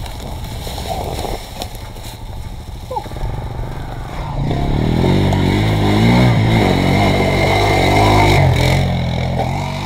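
Small off-road engines running on a hill climb. First the Tao Tao 125 pit bike runs at low revs; its riders say it is acting weird and suspect a flooding carburettor. From about four and a half seconds in an engine revs louder with a wavering pitch as a four-wheeler comes close, then eases off near the end.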